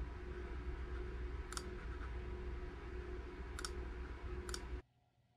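Three sharp computer mouse clicks, about a second and a half in, at three and a half seconds and near four and a half seconds, clicking through installer permission prompts. They sit over a steady low room hum that cuts off abruptly near the end.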